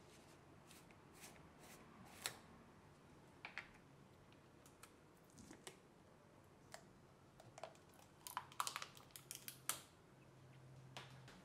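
Plastic screw-top lid of a new jar being twisted open with scattered light clicks, then the jar's inner seal being peeled off with a quick run of sharper crackling clicks about eight to ten seconds in.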